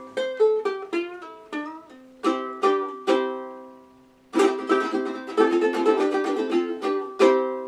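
Vintage all-plastic T.V. Pal ukulele played on its very thin original strings: a quick run of single plucked notes, then three strummed chords left to ring out, then brisk steady strumming from about halfway through.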